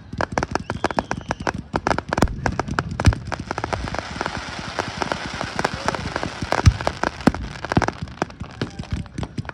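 Fireworks show going off: a dense run of crackling pops with a few heavier bangs, and the crackle thickens in the middle.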